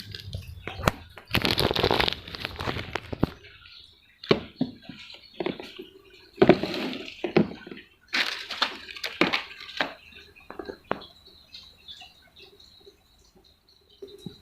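A riflescope being unpacked and handled: irregular rustling of its packaging mixed with small clicks and knocks, in several short bursts, thinning out to occasional clicks near the end.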